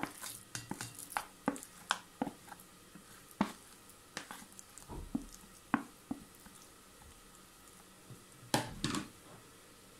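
Wooden spatula scraping and tapping against a plastic bowl as sticky mashed sweet potato is scooped out into a glass bowl, in short irregular knocks and scrapes. A louder, longer scrape comes near the end.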